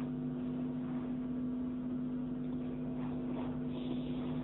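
Steady background hum of a few even, unchanging tones in the recording's pause between recited verses.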